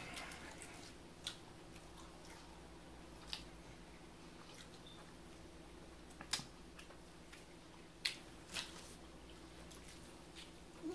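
Close-miked chewing of breaded fish sticks: soft mouth sounds broken by a few sharp wet clicks and smacks, over a faint steady hum.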